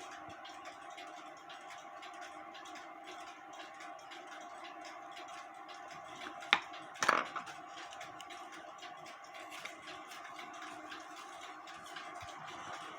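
Quiet workbench handling: a faint steady hum, with two small sharp knocks close together about halfway through as parts and tools are picked up and set down.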